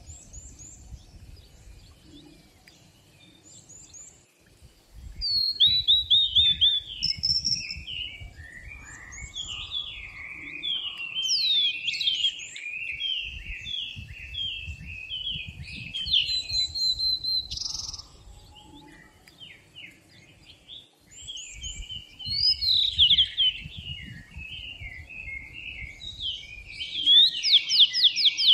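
Songbirds singing: phrases of quick chirping notes that fall in pitch come back every few seconds, with fainter high chirps in the gaps between them.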